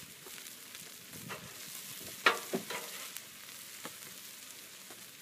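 Food sizzling on a hot Blackstone 36-inch flat-top griddle, a steady frying hiss. Through it come scattered scrapes and taps of a metal spatula lifting bacon off the griddle, with a sharp clack about two seconds in and another just after.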